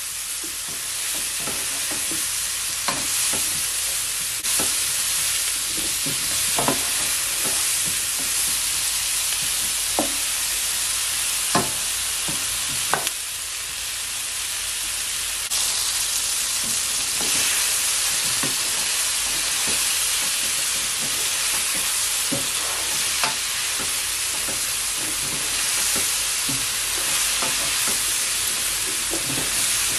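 Mushrooms and diced vegetables sizzling as they stir-fry in a non-stick frying pan, a steady hiss, with a spatula scraping and knocking against the pan every second or two as they are stirred.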